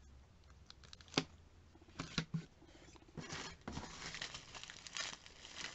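Clear plastic packaging crinkling and rustling as it is handled, with a few sharp clicks and snaps.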